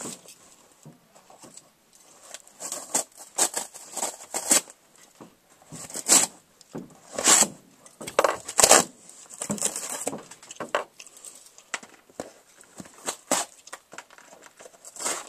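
Cardboard box and packaging being handled and torn open: irregular rustling, tearing and crinkling, with sharper rips and knocks about six to nine seconds in.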